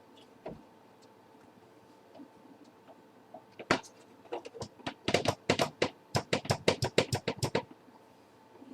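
A quick run of sharp clicks and light knocks, several a second, from hands handling the hard drive cage and plastic parts inside an opened slimline desktop computer. It starts after a few quiet seconds and stops near the end.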